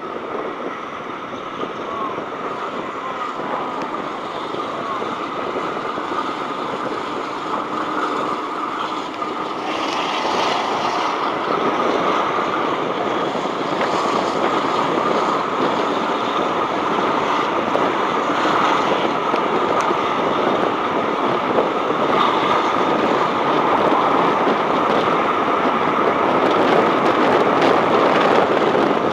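Steam-hauled heritage train running along the line, heard from an open carriage window: a steady rumble of the carriage on the rails mixed with air rushing past, growing gradually louder.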